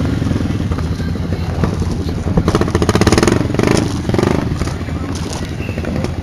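ATV engine running and revving, its pitch rising and falling several times.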